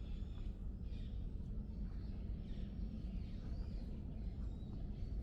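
Outdoor park ambience: faint, scattered bird chirps over a steady low rumble.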